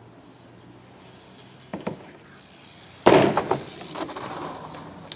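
A BMX bike taking a hard impact, a sharp bang with a quick rattle of several knocks about three seconds in, after two lighter knocks a second earlier. A softer rattling follows as the bike rolls on.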